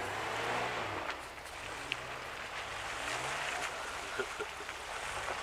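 A vehicle engine revving up and down a few times, over a steady wash of water splashing as a pickup truck's tyres push through a muddy puddle.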